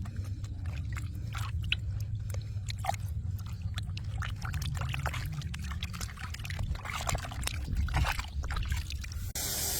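Water sloshing and trickling, with many small knocks and scrapes. Near the end a steady hiss starts suddenly.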